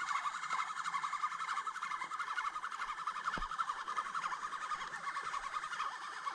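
A steady chorus of rapid, overlapping chirping calls from animals in the riverside night, with one soft low knock about three and a half seconds in.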